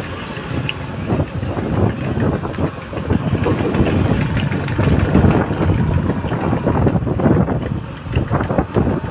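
Motor vehicle running along a road at riding speed: engine and road noise, an uneven low rumble.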